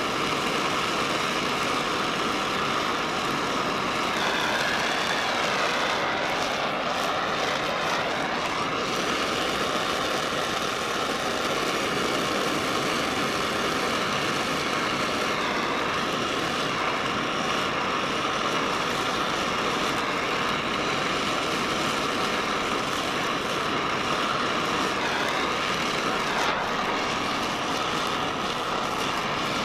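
Oxy-fuel torch flame hissing steadily while brazing a cast iron part with a flux-coated rod.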